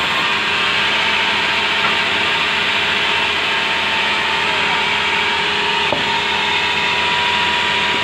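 Sawmill band saw running steadily as a timber plank is fed through the blade, ripping it lengthwise.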